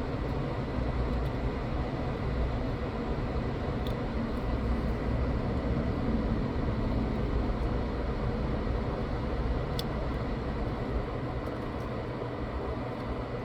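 Hot air rework station blowing steadily, a constant rushing of fan and air, while it heats the solder on a laptop's USB-C charging port to desolder it.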